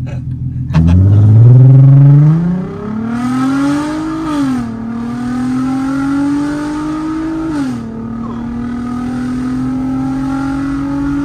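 Volkswagen R32's 3.2-litre VR6 engine heard from inside the cabin under hard acceleration. The revs climb from about a second in and fall sharply at an upshift about four seconds in, then climb again until a second upshift near eight seconds. After that the engine pulls on steadily in the higher gear.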